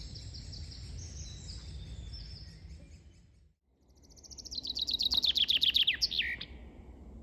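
Songbirds singing in a forest: repeated high notes over a low background rumble, which fade out briefly about halfway through. Then a loud, fast song of rapid repeated notes comes in, falling in pitch and ending in a sweeping downward flourish.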